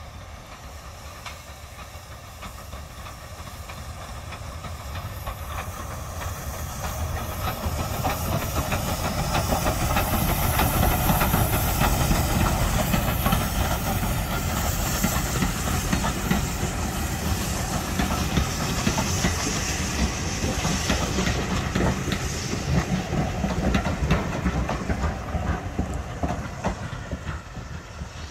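Steam locomotive No. 31592, an SECR C class 0-6-0 tender engine, approaching and passing with its train of coaches: steam hiss and the rattle of wheels on rail. It grows steadily louder to a peak about ten seconds in, stays loud as the coaches roll by, and eases off near the end.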